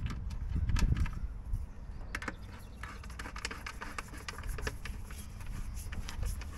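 Scattered small clicks and taps of hand tool and small fasteners as a nut driver tightens nuts and washers on the air cleaner housing's mounting studs, over a steady low rumble.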